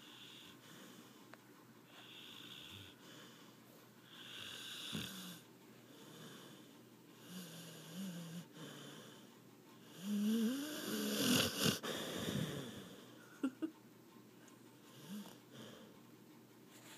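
Sleeping dog snoring: a run of raspy snoring breaths every two to three seconds. The loudest, about two-thirds of the way in, carries a wheezy whistle that wavers up and down in pitch.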